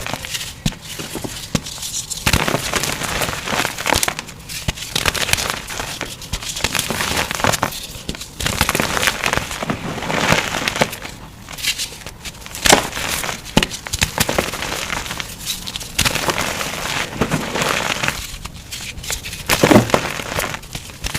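Reformed gym chalk being crushed and crumbled, a dense crunching and crackling in repeated bursts, played back at double speed.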